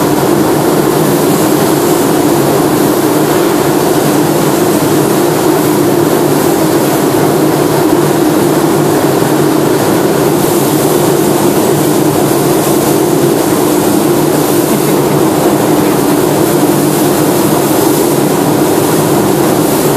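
Compressed-air paint spray gun hissing as paint is sprayed onto a car panel, over the loud, steady rush of the paint booth's ventilation.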